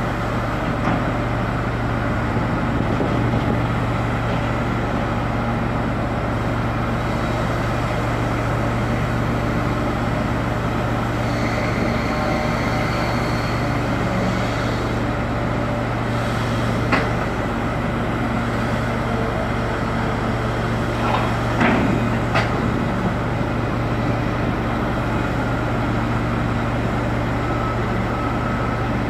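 Steady low drone of heavy machinery engines running, with a few short knocks past the middle.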